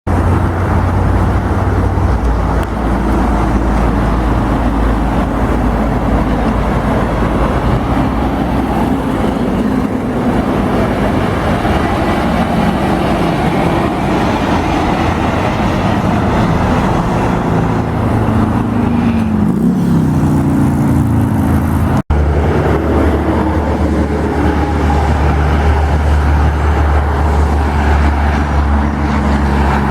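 Straight-piped Kenworth W900L semi truck's diesel engine running loud and continuous at highway speed. About two-thirds of the way through, its note falls in pitch, then after a brief break a steady deep drone carries on.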